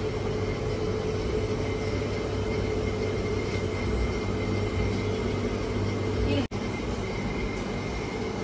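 Steady machine hum with a low rumble and two faint constant tones, briefly cutting out about six and a half seconds in.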